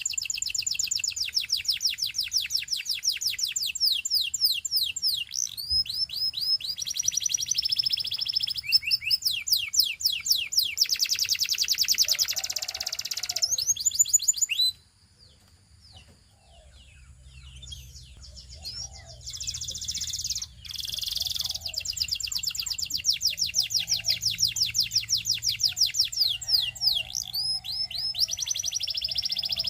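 Canary singing in long rolls of fast, repeated high notes, changing from one rapid trill to the next. About halfway through the song stops for several seconds, then picks up again with the same rapid rolls.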